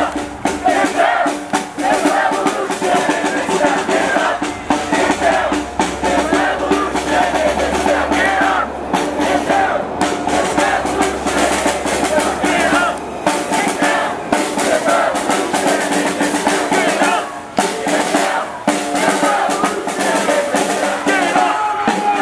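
Drums beaten repeatedly among a marching protest crowd, with many voices calling out together over the beat.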